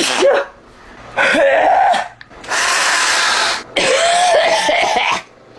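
A sick person coughing and hacking in three long, harsh fits, clearing phlegm from the throat.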